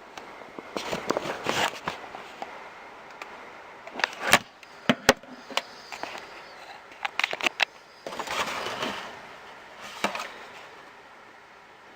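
Jumper handheld fetal doppler's speaker giving out irregular rushes of noise and several sharp clicks, the two loudest about four and five seconds in, with no steady heartbeat rhythm.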